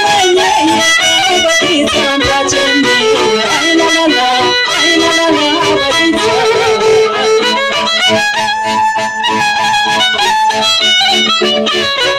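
Romanian folk music: a violin carries an ornamented melody over accompaniment, with a steady rhythmic beat coming through in the second half.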